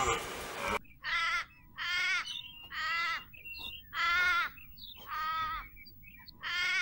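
An animal calling six times, about once a second, each call short with a slightly wavering pitch.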